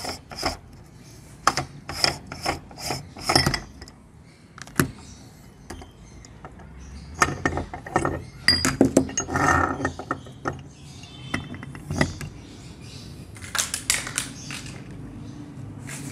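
Metal clicks, knocks and scraping as a hand-cranked meat grinder is taken apart: the ring nut is unscrewed and the perforated cutting plate is pulled off. A quick run of clicks comes at the start, then scattered knocks and scrapes, and another cluster of clicks near the end.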